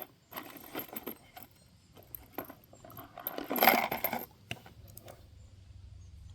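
Small metallic clicks and clinks of .22 Magnum rimfire cartridges being handled and loaded into a Marlin 782 bolt-action rifle. There is a louder rattling clatter a little past the middle.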